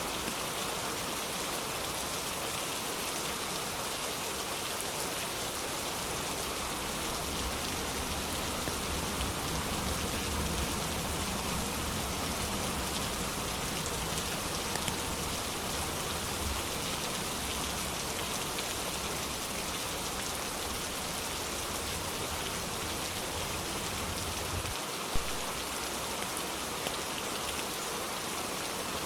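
Steady rain falling, an even hiss of many drops. A low rumble swells and fades in the middle, and a single sharp tap sounds near the end.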